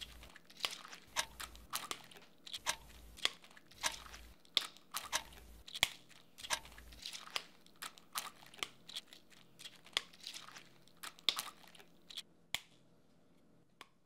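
Kitchen food-preparation sounds while making a pie: a quick run of sharp knocks and crinkly, tearing noises, about one or two a second, which stop about twelve and a half seconds in.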